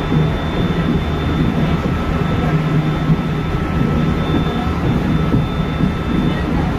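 Steady running noise inside the front of a Hokuhoku Line electric train moving at speed: a constant low rumble of wheels on rail with a steady low hum and a faint high whine.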